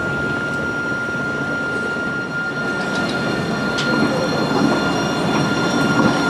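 Alstom TFS tram running at a tram stop, a steady rumble of running gear under one steady high-pitched whine, with a few light clicks; it grows a little louder after about four seconds.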